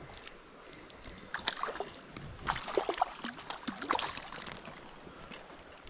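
A hooked trout thrashing at the surface of a creek: a run of irregular splashes starting about a second in and dying away near four seconds, over the steady rush of the stream.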